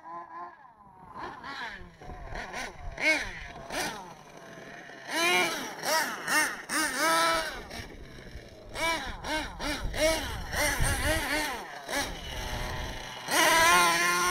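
Small nitro RC monster truck engine revving in quick bursts, its high-pitched whine rising and falling over and over, loudest in stretches about five, ten and thirteen seconds in.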